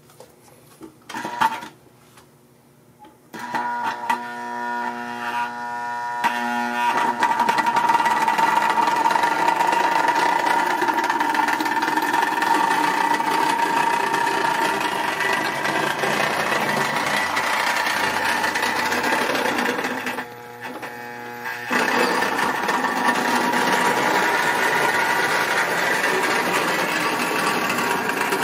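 Marx toy diesel locomotive's electric motor and gearing running with a steady whine as the train rolls along the track, after a couple of clicks at the start. The motor is briefly quieter about twenty seconds in. It is the unrepaired locomotive, running at almost full power.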